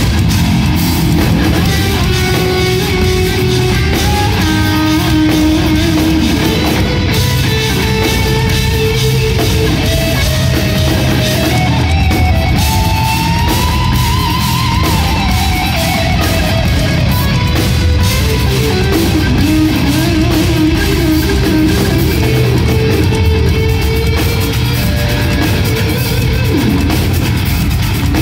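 Live instrumental progressive metal from two eight-string electric guitars and a drum kit, loud and dense. A guitar melody climbs and then falls again about halfway through.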